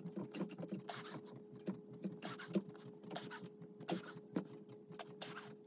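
Faint, irregular scuffs, rustles and clicks of someone doing push-ups on a carpeted floor close to the microphone, over a steady faint hum.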